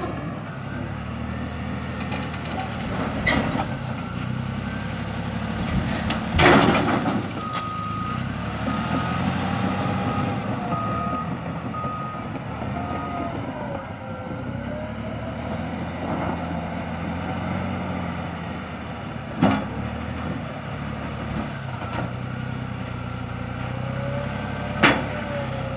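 Caterpillar D6T bulldozer's diesel engine running steadily under work, its reverse alarm beeping about once a second for several seconds near the middle. A few sharp metallic clanks break through, the loudest about six and a half seconds in.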